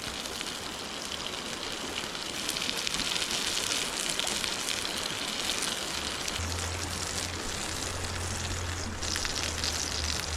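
Chicken sizzling in a pan over a campfire, a steady hiss with fine crackles.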